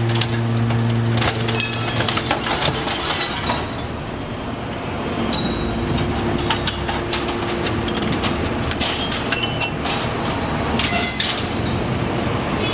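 YDJ-6300 hydraulic scrap metal shear baler working on waste metal: a steady hydraulic hum that stops about a second in, over continual clanking, cracking and ringing of scrap metal.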